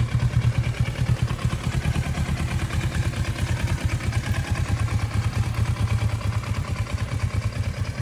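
Motorcycle engine idling steadily close by, a low rumble pulsing quickly and evenly.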